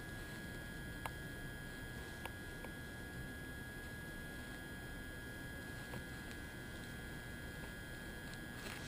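Quiet background hiss with a faint steady high tone, broken by a couple of faint ticks about one and two seconds in.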